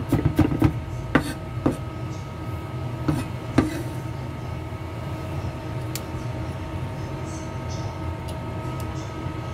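Cleaver blade knocking on a wooden chopping board as red onion is minced: a quick run of chops in the first two seconds, then a few single knocks as the chopped onion is scraped and scooped up on the blade. A steady background hum runs underneath.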